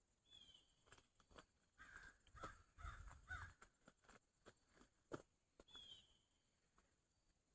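Faint bird calls: a short falling chirp near the start and again near the end, with a cluster of harsher calls in the middle, among a few sharp clicks.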